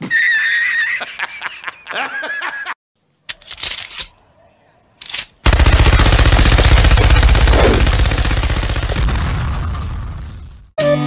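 A man's loud cackling laugh for nearly three seconds, then after a couple of short noises, a long continuous burst of rapid machine-gun fire lasting about five seconds, the loudest sound, dying away near the end.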